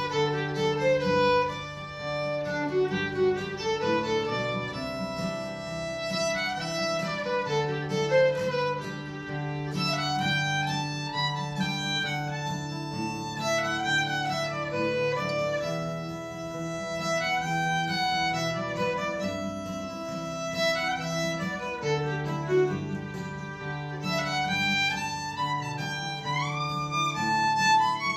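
Violin playing a melody with sliding, wavering notes, accompanied by an acoustic guitar.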